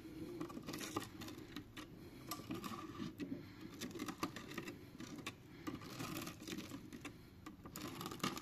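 A stiff plastic card slid along the double-sided adhesive tape under a phone's glass back cover, cutting it free: faint, irregular small clicks and crackles as the tape separates.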